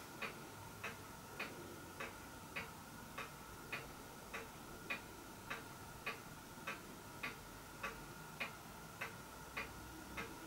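Faint, even ticking of a clock, a little under two ticks a second, over a faint steady hum.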